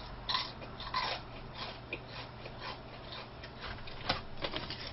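Close-up chewing of crunchy fried chicken: soft crunches and wet mouth clicks at irregular intervals, with a sharper click about four seconds in.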